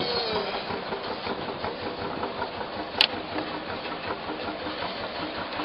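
Boat engine running steadily, with one sharp click about three seconds in.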